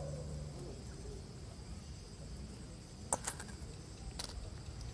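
Faint, steady, high-pitched chirring of crickets, with a quick cluster of sharp clicks about three seconds in and a single click about a second later.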